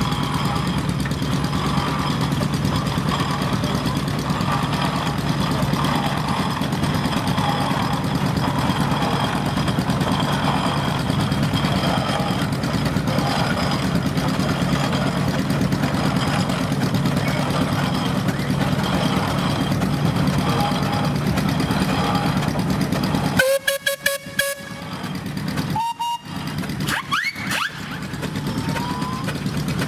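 Steam traction engines running, a steady low mechanical hum. About two-thirds of the way in, a short steam-whistle toot breaks up in stuttering cut-outs, and a few brief rising glides follow.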